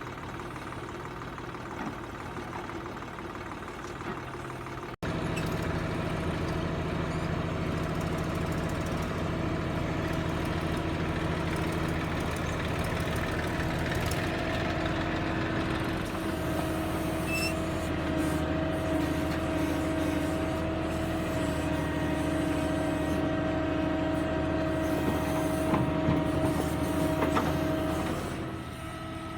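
Tractor diesel engine running steadily, louder after a cut about five seconds in, its note shifting up and down in pitch a few times as the machine works.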